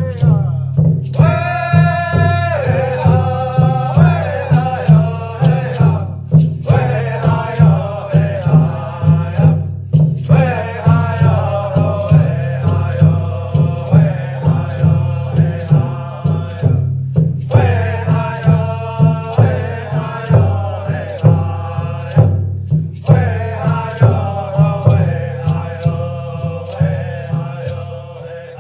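A voice singing a chanted song in phrases a few seconds long over a steady drumbeat. The song ends right at the close.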